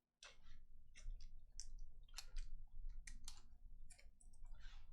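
Trading cards being flipped through by hand, faint irregular clicks and snaps of card against card, a few a second.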